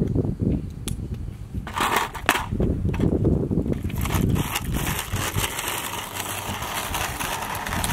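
RipStick caster board with a 3D-printed PETG front wheel on rough asphalt: a few sharp knocks as the rider steps onto the board, then from about four seconds in a steady gritty rolling noise from the wheels.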